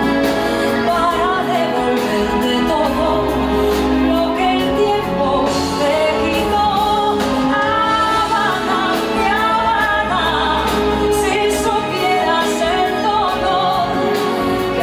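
Salsa music with singing and percussion.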